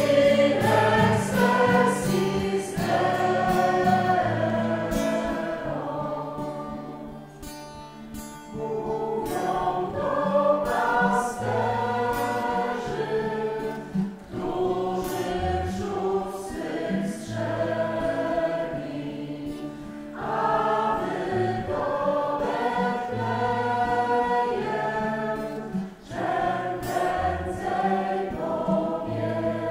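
Small mixed choir singing: several women's voices with one man's voice, in phrases with short breaths between them.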